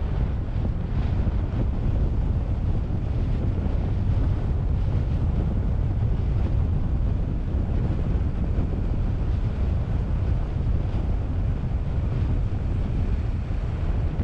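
Steady wind rush and low rumble on the microphone of a camera mounted outside a moving car, over the bonnet, with the car's road noise underneath.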